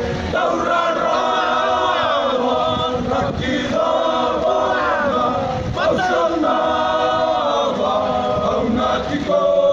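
A group of men singing together in harmony, unaccompanied, with long held notes that rise and fall.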